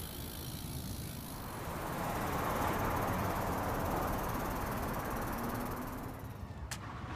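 BMX tyres rolling over pavement, with wind rushing on the phone's microphone; the noise swells in the middle and fades. A single sharp click comes near the end.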